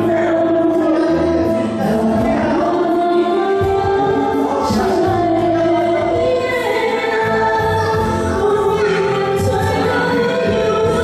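Music with singing: a melody of long held sung notes over an accompaniment.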